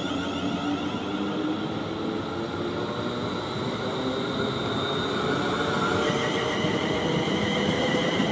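Class 350 Desiro electric multiple unit moving along the platform, its traction motors whining in several steady tones that fall slightly in pitch, over wheel and running noise on the rails.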